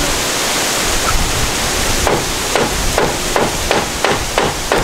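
A hand hammer striking the wooden rafters, about eight quick blows starting about two seconds in, roughly three a second. Steady wind noise on the microphone runs underneath.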